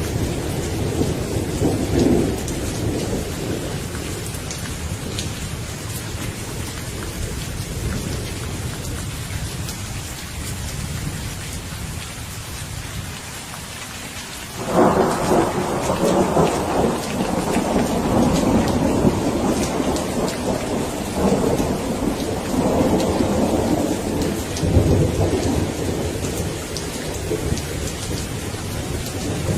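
Steady rain with rolling thunder: a rumble fades away over the first half, then a new peal of thunder breaks in suddenly about halfway through and rolls on, swelling again near the end.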